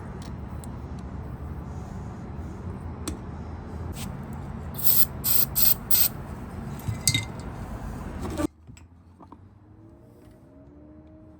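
Short, sharp sprays, four in quick succession and one more a moment later, over a steady hiss and low machine hum. The sound cuts off abruptly near the end, leaving faint background music.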